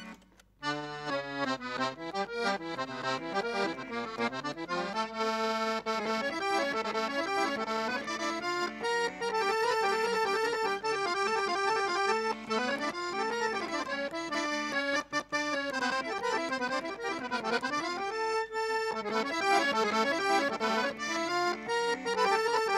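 Dallapè piano accordion played solo: a quick melody of running notes over held chords, starting after a brief pause about half a second in, with two short breaks later on.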